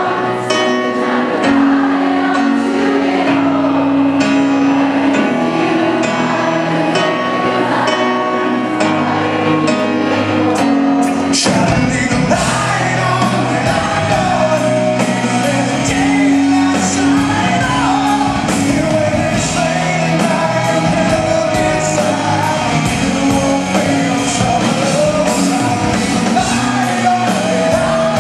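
Live rock band with a male lead singer, heard from the audience in a large hall. A sparser passage of held notes gives way, about eleven seconds in, to the drums and bass entering and the full band playing.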